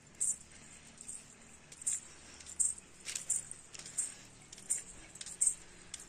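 Footsteps scuffing on a wet road, short crisp steps a little under a second apart.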